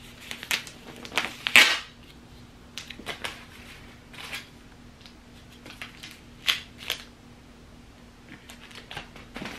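Crinkling and rustling of paper and padded nylon packaging being handled and unwrapped: a string of short, sharp crinkles, loudest about a second and a half in, with a few more scattered later.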